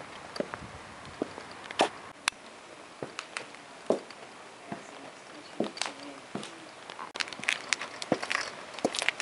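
Footsteps of Dan Post caiman-print leather cowboy boots on concrete: sharp, irregular heel clicks about one or two a second, coming faster and busier in the last couple of seconds.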